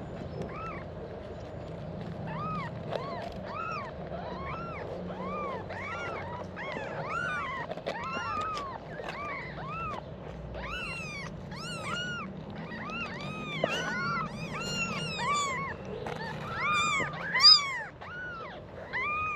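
Newborn kittens mewing over and over: short, high cries that rise and fall, one or two a second, with several kittens overlapping in the second half and one louder cry near the end.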